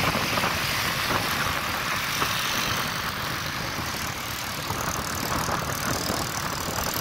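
Steady road traffic noise, with vehicle engines running.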